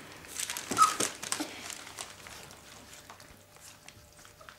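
A litter of young puppies licking and chewing food from a hand, with small soft clicks and a brief high whimper about a second in; the sounds thin out after about two seconds.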